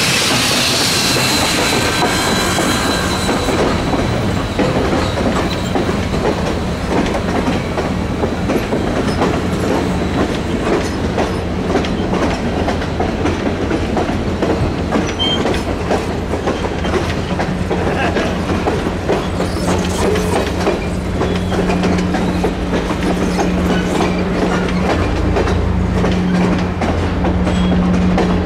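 Passenger cars of a steam-hauled train rolling past, wheels clicking over the rail joints. In the first few seconds the hiss of steam from the C&O 1309 Mallet locomotive fades out, and a steady low hum grows in the second half.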